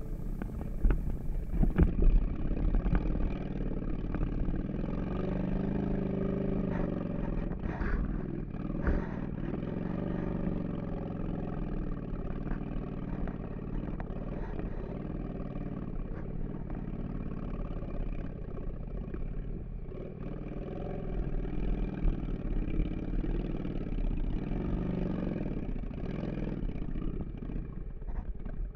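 Cruiser motorcycle engine running at low speed on a gravel track. Its pitch rises and falls several times as the throttle is opened and eased off.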